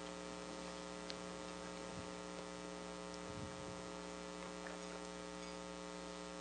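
Steady electrical mains hum, several even tones held unchanged, with a faint low knock about three and a half seconds in.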